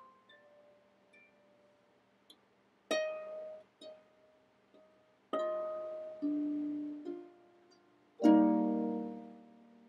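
A harp being plucked slowly: sparse single notes, with louder notes about three and five seconds in. Just after eight seconds a full chord is struck and rings on, fading.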